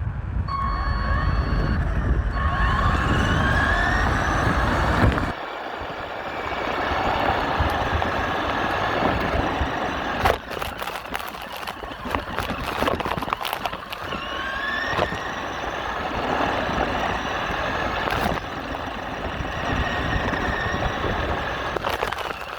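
Small electric motor of a radio-controlled truck whining, rising in pitch several times as it speeds up, with gear and tyre noise and a few sharp knocks. A heavy low rumble under it cuts off suddenly about five seconds in.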